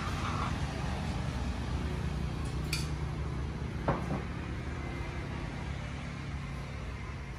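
A metal spoon clinks twice against a steel cooking pot, about two and a half and four seconds in, over a steady low hum.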